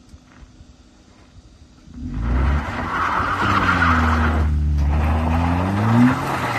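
Ford Focus engine revving hard as the car powers up a loose dirt hairpin, its wheels spinning and spraying gravel. The sound starts suddenly about two seconds in, and the engine pitch sags and then climbs again near the end.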